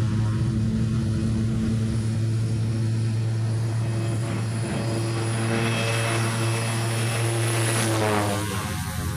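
De Havilland Canada Twin Otter twin-turboprop taking off at full power, its propellers giving a steady droning hum. The engine hiss swells as it comes closer, and about eight seconds in it passes overhead and the pitch drops as it goes by.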